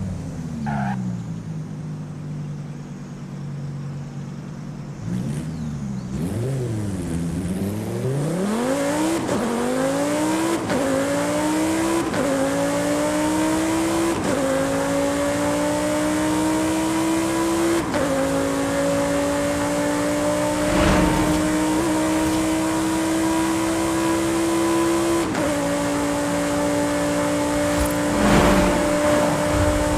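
A car engine pulling up through the gears. Its note rises gradually and drops back at each upshift, about six times, with each gear held longer than the last.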